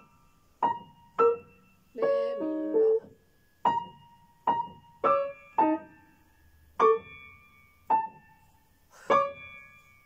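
Grand piano played slowly and haltingly: about ten single notes and small chords struck one at a time, unevenly spaced with short gaps between them and one chord held for about a second. This is the halting pace of a piece being sight-read for the first time.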